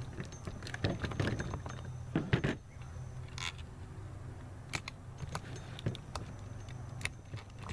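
Metal clinking and rattling of the rocker arm assembly on a Honda F22B1 VTEC cylinder head as it is worked loose by hand and with a wooden mallet handle. A dense run of knocks and clicks over the first two and a half seconds gives way to scattered single clicks.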